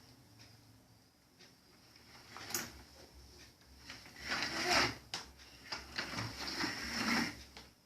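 Scraping and rattling noises, loudest from about four to seven seconds in, with a few sharp clicks.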